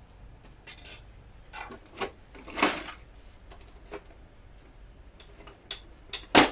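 Printer plastic covers and tools being handled during disassembly: scattered clicks and rattles, a brief scraping rattle a little before three seconds in, and a sharp loud click near the end.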